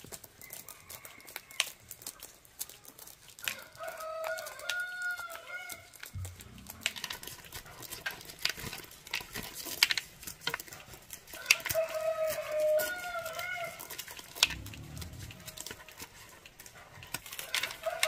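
Dried corn being shelled by hand: kernels clicking and rattling as they are rubbed off the cob and drop into a plastic bucket. A rooster crows three times in the background, the last starting near the end.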